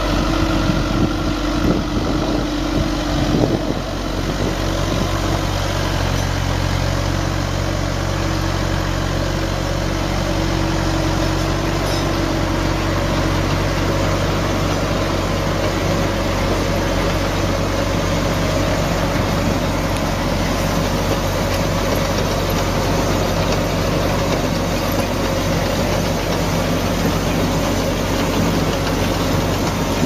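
A machine's engine running steadily with a low hum, with some knocking and clatter in the first few seconds.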